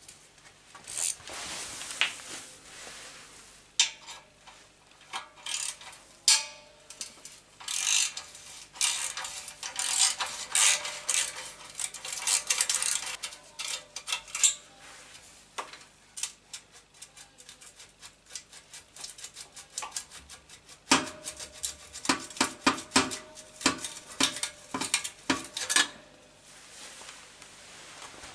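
Metal clinking, clicking and rattling of hand tools and the stainless exhaust pipe as the exhaust is worked loose at the footrest plate of a Yamaha FZS1000. The clinks come in dense clusters, with a stretch of quick, even clicks in the middle and a faint metallic ring under the last clusters.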